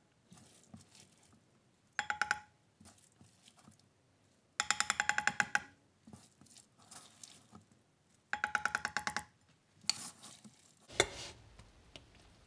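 Metal serving spoon scraping along a stainless steel pot in three strokes, each a short, pulsing, squealing ring at the same pitch, the middle one the longest.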